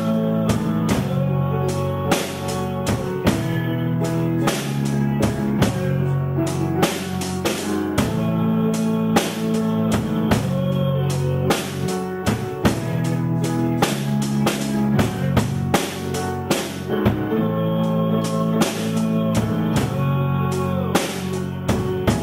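A band playing live: a drum kit keeps a steady beat under sustained guitar chords.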